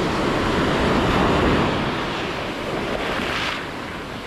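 Sea surf washing in and breaking, swelling about a second in and then easing off, with wind buffeting the microphone.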